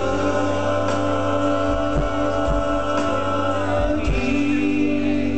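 Live vocal music through a club PA: voices holding a sung chord over a steady deep bass, with a few low thumps; the chord shifts lower about four seconds in.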